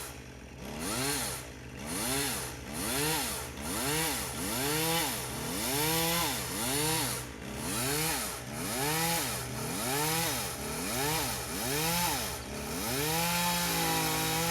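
Gas chainsaw cutting a tree, its engine pitch rising and falling about once a second, then held steady near the end before cutting off suddenly.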